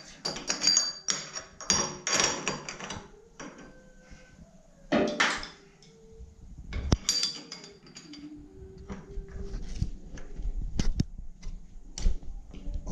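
Metal clinks, scrapes and sharp knocks of a tubular box spanner being worked onto the tap fitting in the wall recess, in irregular clusters with a few single knocks near the end.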